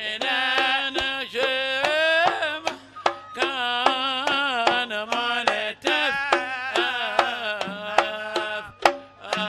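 Arabic wedding band playing live: a wavering, ornamented melody sung or played over quick hand-drum strokes and a steady low drone.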